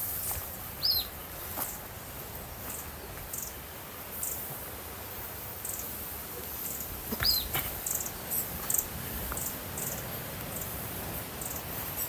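Wild birds calling in hillside scrub: short high chirps repeated at short, uneven intervals, and twice a louder falling whistle, about a second in and a little past halfway, over a low background rumble.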